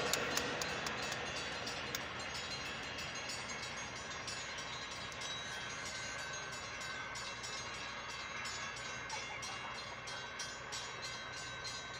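Railroad grade-crossing warning bell ringing steadily, about three strikes a second, over the fading rumble of a Metra commuter train that is moving away.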